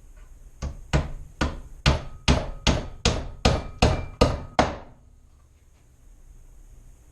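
Hand hammer driving nails into the wooden joints of a nuc box: about eleven quick strikes, a little over two a second, stopping about five seconds in.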